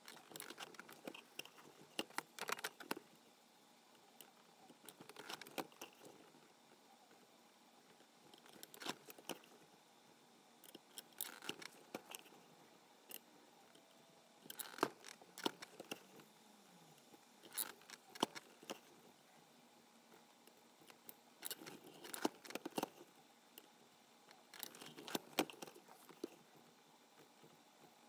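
A press-mounted multi-prong pricking iron punching stitching holes along a strap, with a short cluster of sharp clicks and taps roughly every three seconds as the press comes down, the prongs pierce and pull out, and the strap is moved along.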